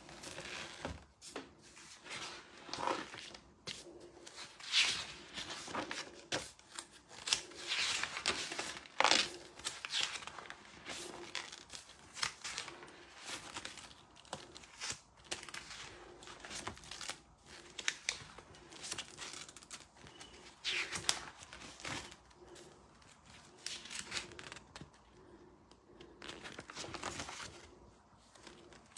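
Paper pages of a spiral-bound scrapbook being handled and turned, rustling and crinkling in irregular bursts.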